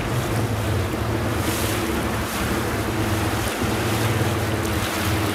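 Wind buffeting the microphone and choppy sea waves splashing, over a steady low hum of a motorboat engine.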